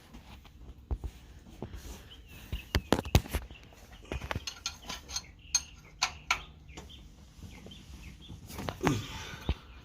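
Irregular metallic clinks and knocks of a wrench working the oil drain plug loose on a 2002 Corvette Z06, with birds chirping faintly.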